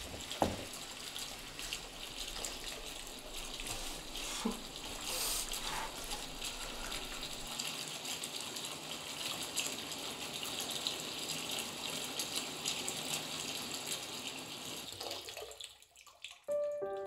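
Bathroom tap running steadily into a sink, an even hiss with a few faint knocks, fading out about fifteen seconds in. A few sustained piano notes begin just before the end.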